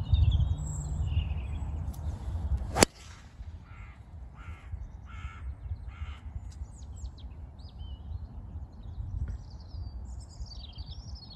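A driver strikes a golf ball about three seconds in: one sharp crack over a low rumble. Then a crow caws four times, and small birds chirp with quick rising and falling notes near the end.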